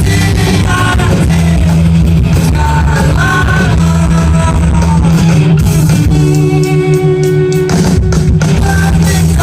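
Live rock band playing loud, with electric guitar, bass and drums; a chord rings out held for a second or two about six seconds in, broken by a few sharp hits.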